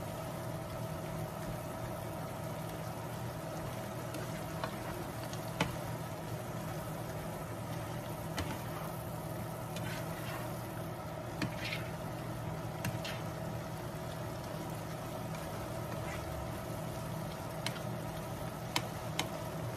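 Kitchen tongs clicking and scraping now and then against a frying pan as green beans and ground beef are stirred, over a steady low hum.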